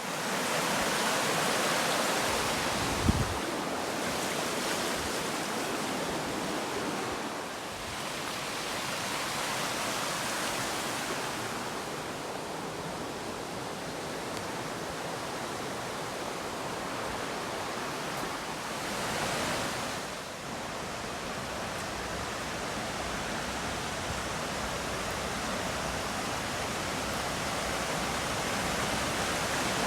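Waterfall pouring down: a steady rushing roar of falling water, swelling a little now and then, with one brief low thump about three seconds in.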